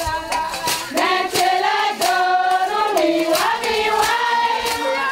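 Group of women singing a song together, with regular hand claps keeping time.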